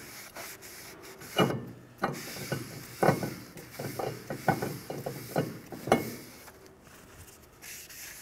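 Rag rubbing brake parts cleaner over a new brake rotor's surface to strip the shipping oil, in a run of short, uneven wiping strokes.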